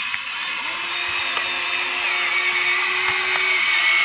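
Small electric gear motors of a toy excavator whining steadily as its arm and bucket move, with a second, lower motor tone coming in about half a second in.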